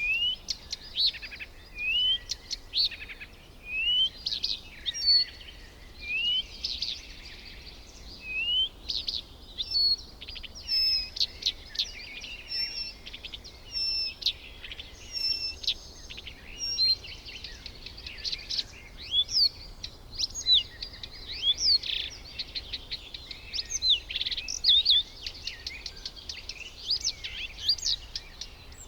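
Several birds calling outdoors. A short rising call repeats about once a second in the first half, then many overlapping chirps and calls build into a busy chorus, over a low steady background hiss.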